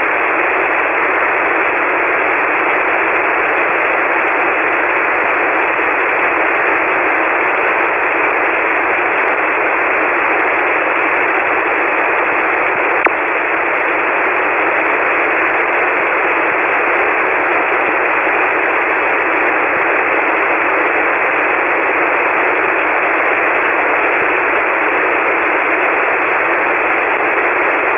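Steady hiss of a ham radio receiver in single-sideband mode with no signal on frequency: band noise filling only the narrow voice passband, so it sounds thin and telephone-like.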